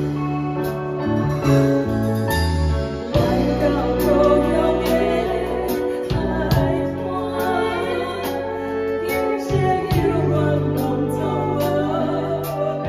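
Music with singing over sustained chords and a steady beat.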